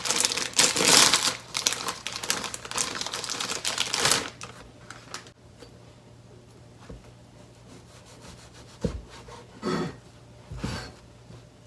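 Knife cutting through sheets of deep-fried tofu on a cutting board, a rapid crackly rasping for about four seconds. This is followed by a few soft knocks on the board near the end.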